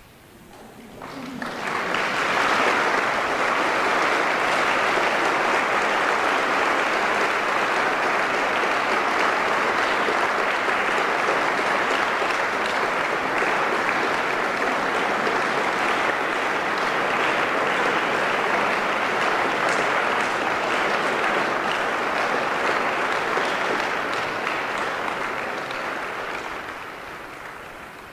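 Concert audience applauding after a piano performance: the clapping swells up over the first couple of seconds, holds steady, and thins out near the end.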